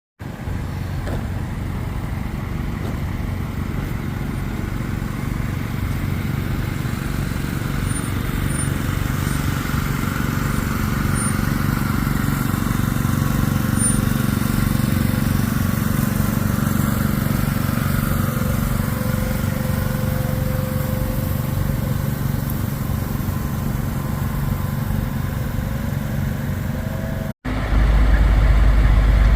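Engines of heavy asphalt paving machinery running steadily in a continuous low drone. Just before the end the sound cuts off abruptly and comes back as a louder, deeper engine.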